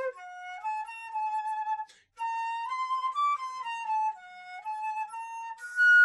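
Solo instrumental melody: a single line of held notes moving up and down by small steps, with a brief break about two seconds in.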